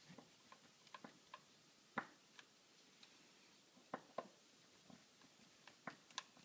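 Faint, irregular small clicks of a flat-head screwdriver turning a cover-plate screw by hand.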